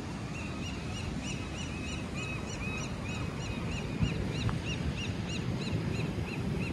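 A bird calling in a long run of short, high whistled notes, about four a second, over the low rush of surf and wind.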